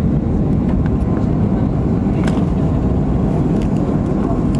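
Steady low rumble and rush inside the cabin of a Boeing 737-500 airliner in motion, from its CFM56-3 engines and the airflow over the fuselage, with a few faint clicks.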